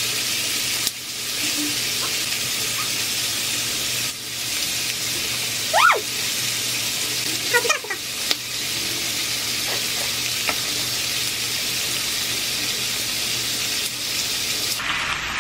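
Pork belly (samgyeopsal) sizzling steadily as it grills, with a few short squeaky glides near the middle.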